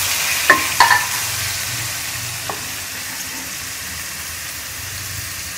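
Chopped tomatoes sizzling in hot ghee in a metal karahi as a wooden spatula stirs them, with three sharp knocks of the spatula on the pan in the first few seconds. The sizzle gradually quietens.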